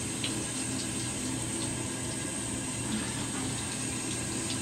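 Water spraying steadily from a handheld shower head onto a dog's coat in a bathtub.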